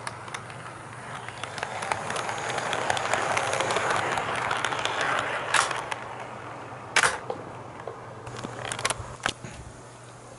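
HO gauge model train, an EF81 electric locomotive with a coach, rolling over sectional track and a turnout: the wheels rumble and tick over the rail joints, swelling as it passes close and then fading. Several sharp clicks follow in the second half.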